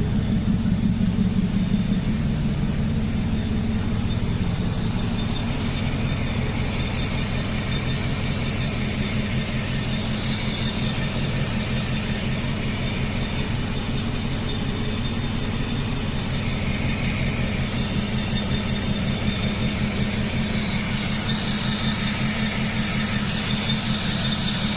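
Mercedes-Benz W124 V8 engine idling steadily with its mass air flow sensor removed, an even rapid low pulsing. The engine has been misfiring, and the owner thinks it runs better with the sensor out.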